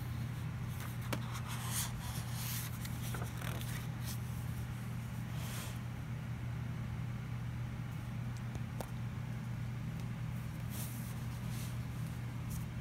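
Pages of a hardcover picture book being turned and the book handled, faint paper rustles and light taps, over a steady low hum.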